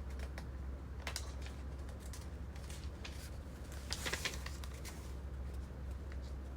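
Light clicks and taps of small objects being handled, with a brief cluster of clicks and a rustle about four seconds in, over a steady low hum.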